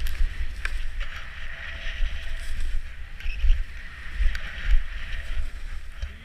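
Skis sliding over snow, heard as a steady hiss, under the uneven low rumble of wind buffeting the camera microphone.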